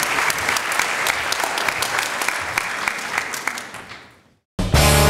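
Audience applauding, fading out about four seconds in; after a brief silence, rock music with guitar starts near the end.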